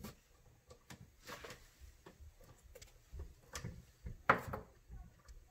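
Small clicks and light knocks of hands working the hub adapter off the wheel end of an RC truck's front axle, with one sharper click about four seconds in.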